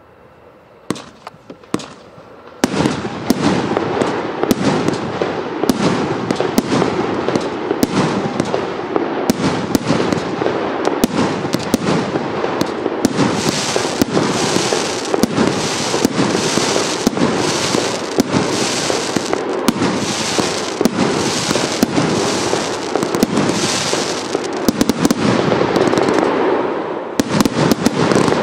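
Primed Pyrotechnics 'Bankroll' firework going off. A few scattered pops come first, then about two and a half seconds in it breaks into a loud, continuous barrage of rapid shots and bursting stars that keeps going throughout.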